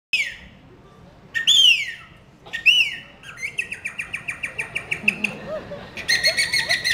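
A person imitating bird calls by mouth whistling: three separate downward-sliding whistled calls, then a quick trill of repeated notes at about five a second that grows louder and fuller near the end.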